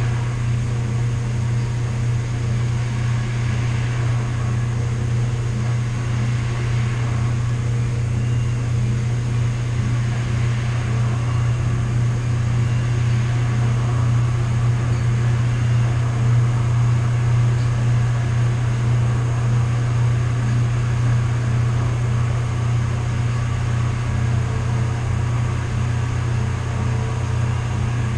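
Steady low mechanical hum of several household machines running together: clothes dryer, washing machine, 3D printer and sump pump. Faint higher tones come and go over it.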